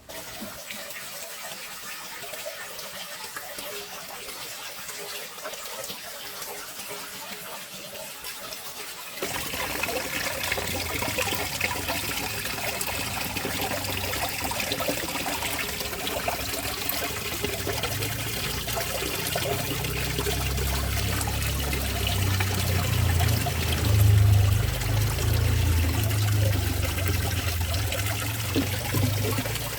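Water running and trickling, splashing steadily. It grows louder about nine seconds in, and a low hum joins later.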